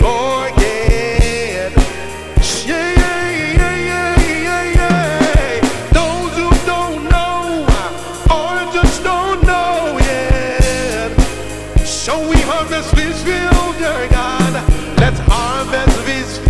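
Gospel worship band music: a drum kit keeping a steady beat of about two hits a second, with bass and a gliding melodic lead line over it.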